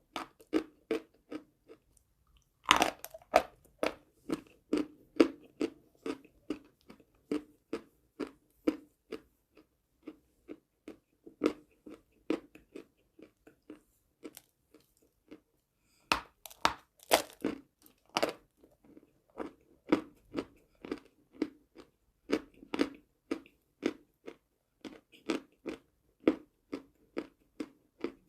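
A person biting into chalk and chewing it. There are loud crunching bites about three seconds in and again around sixteen to eighteen seconds, with steady chewing crunches, about two a second, in between and a brief pause before the second bites.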